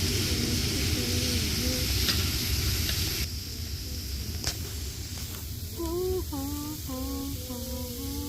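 Chicken sizzling on an outdoor grill with a tune over it. About three seconds in, the sizzle drops away abruptly, and the tune comes back near the end.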